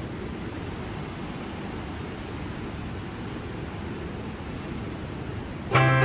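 Steady rush of water released through Shasta Dam, heard from high above as it plunges into the river below. Near the end, guitar music cuts in.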